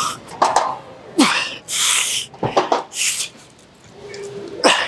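Five or six sharp, forceful exhalations, some with a short grunt, from a man straining through dumbbell bicep curls, with a quieter pause a little after three seconds in.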